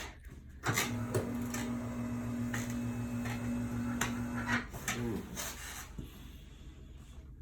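Electric chiropractic adjusting instrument buzzing with a steady hum for about four seconds, starting about a second in, with scattered sharp clicks over it.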